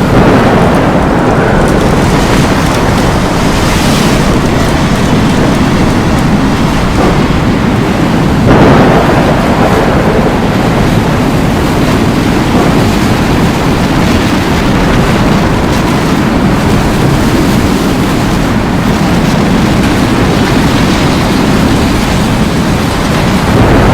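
Loud, steady storm noise of wind and rain with a deep rumble, and a brief louder surge about a third of the way in.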